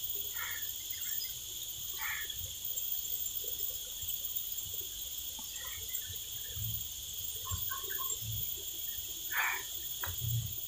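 Steady chorus of insects shrilling in several high-pitched bands, with a few short animal calls, once about two seconds in and again near the end.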